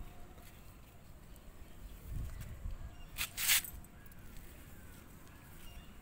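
Low handling rumble from a handheld phone, with two short rustling noises about three seconds in.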